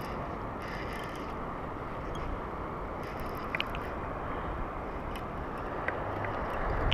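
Fishing reel being cranked to retrieve the line, a steady mechanical whir with a few faint clicks, under wind and water noise on the microphone.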